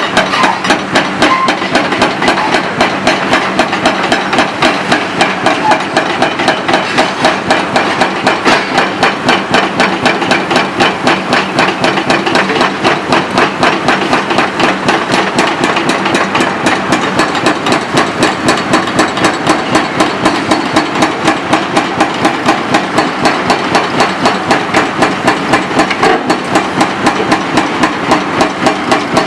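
Dehaco IBEX 4000GS hydraulic breaker hammer on a Komatsu PC 490-10 excavator pounding concrete in a fast, steady rhythm of blows, several a second, over the excavator's steady diesel engine hum.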